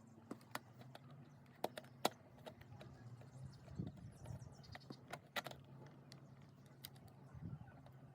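Sharp clicks and light rattling of small hard parts being handled and fitted, a dozen or so irregular ticks with the loudest about two seconds in, over a steady low hum.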